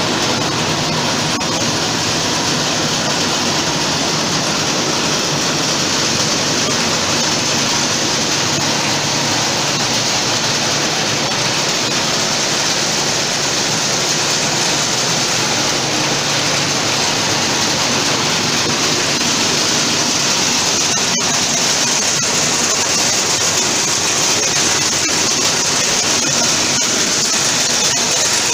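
Bean and pulse thresher running steadily, its drum and fan giving a continuous loud rushing noise. One brief click about 21 seconds in.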